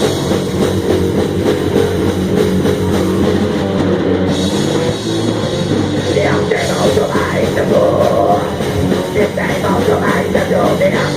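Black metal band playing live: distorted electric guitars and a drum kit in a loud, dense instrumental passage.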